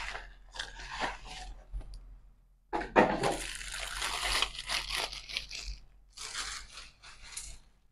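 Cardboard box being opened with short scratchy rustles, then a thin black plastic bag crinkling and crackling as the photocell is pulled out of it, with a last burst of crinkling near the end.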